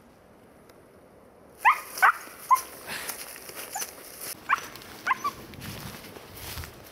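Siberian Husky puppy giving a string of short, high yelps that rise in pitch, starting about one and a half seconds in, the first three loudest, as it dashes off through dry brush and leaf litter with a rustling underneath.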